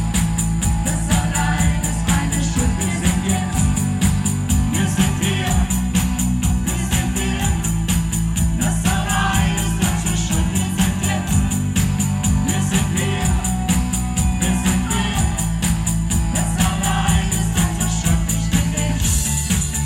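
Live band playing a German pop song: a woman and a man singing over electric guitar, keyboard and an electronic drum kit, with a steady ticking beat on top.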